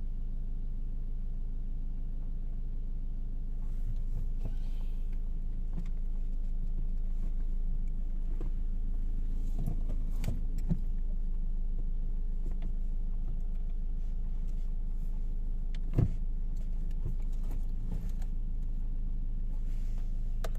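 Ford Ranger 2.2L diesel engine idling steadily, running again now that its no-start fault is solved. A few light knocks and clicks sound over it, the sharpest about sixteen seconds in.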